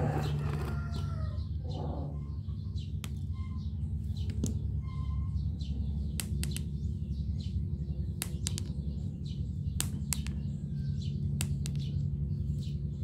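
Outdoor ambience: a steady low hum, a few brief bird chirps and scattered sharp clicks.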